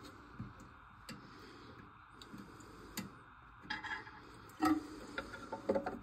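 Scattered clicks and knocks of hands working the plastic flush valve parts and rubber seal inside a toilet tank. They are sparse at first, then come closer together and louder in the second half.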